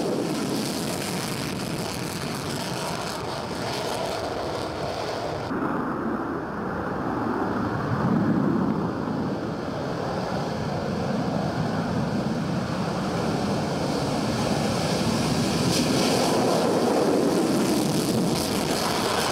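Steady rushing noise of wind and aircraft engines, with an abrupt change about five and a half seconds in when the high hiss drops away.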